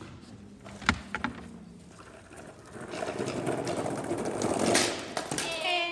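Skateboard on pavement: a couple of sharp board clacks about a second in, then the wheels rolling with a rising rattle that peaks just before the end. A child's voice comes in at the very end.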